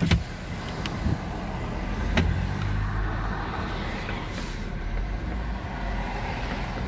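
Low engine rumble and cabin noise of a Nissan Teana J32 creeping forward. The engine has knocked-out crankshaft bearings. A sharp clunk comes at the start, with lighter knocks about one and two seconds in.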